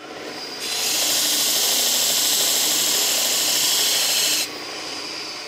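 A 1x42 belt sander with a 100-grit belt running, with the tip of a golf shaft pressed against it for about four seconds, giving a loud, high hiss; the belt keeps running after the shaft is lifted. The sanding roughens the shaft tip so the epoxy will grip inside the clubhead's hosel.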